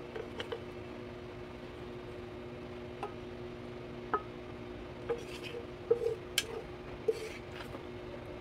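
Scattered light clicks and knocks of a wooden spatula and a frying pan against a ceramic plate as fish steaks are moved and served, busiest in the second half. A steady low hum runs underneath.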